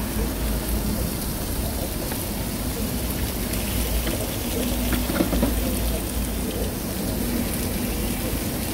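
Food sizzling steadily on a flat-top steel griddle, over a steady low rumble, with a few light taps about halfway through.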